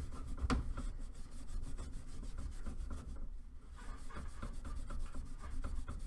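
Steel wool scrubbed back and forth on the end of a copper refrigerant line, a quick run of scratchy rubbing strokes with a short pause a little past halfway. It is cleaning dirt, residue and oil off the outside of the tube to prepare the joint for brazing.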